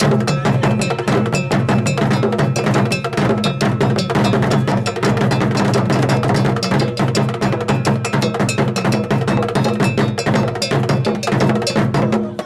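Obonu drum ensemble playing a dense, fast rhythm on large pegged barrel drums and smaller drums struck with sticks, with a bright metallic bell-like ringing over the deep drum tones. The playing cuts off suddenly at the very end.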